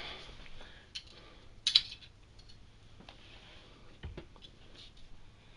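Scattered light clicks and a short scrape, loudest about two seconds in: a bore snake being handled and fed through the open breech of a .22 lever-action rifle.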